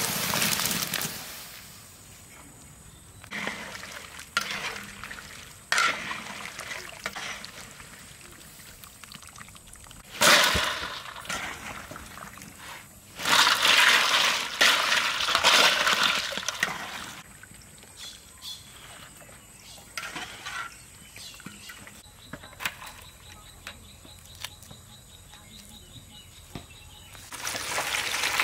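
Water splashing and pouring in several bursts as lychees are tipped from a basket into a large pan of water and ice and scooped with a wire strainer; the longest burst comes about halfway through, a sharp splash just before it.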